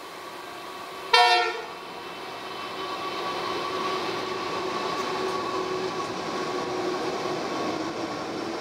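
A Pacific National diesel freight train sounds a short horn blast about a second in, then its locomotives pass close by with engines running, followed by container wagons rolling along the track.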